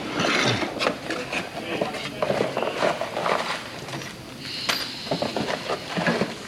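Irregular taps, clicks and rustling of parts being handled, with a brief high squeak about two-thirds of the way through.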